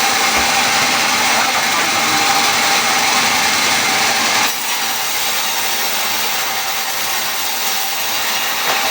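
Power tool running steadily through wood, a constant whine over a broad rasp, easing a little about halfway through.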